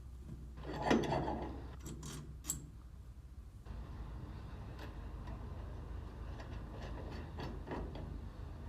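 Metal parts being handled while a bolt is fitted through a bracket: a louder clank about a second in, a couple of sharp clicks soon after, then scattered light ticks.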